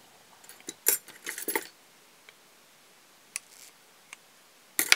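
A few short clicks and rustles of hands handling fly-tying materials and tools at the vise, with the loudest click near the end.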